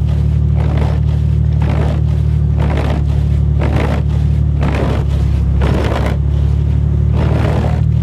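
The 3800 V6 engine of a 1989 Oldsmobile 98 idling steadily after a cold start, with a swishing stroke repeating about once a second over it.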